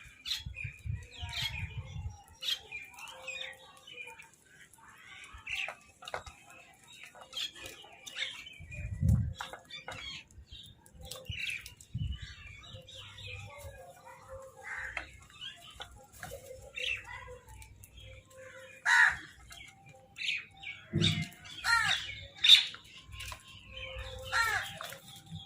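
Crows calling over food: many short, harsh caws, some overlapping, coming thicker and louder toward the end, with a few low thumps.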